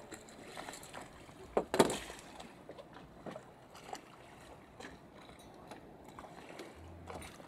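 Water washing along the hull of a sailboat under sail, with one loud knock a little under two seconds in and a few lighter clicks.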